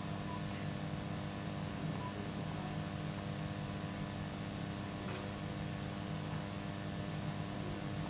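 Steady low electrical hum under a light hiss: room tone with no distinct events.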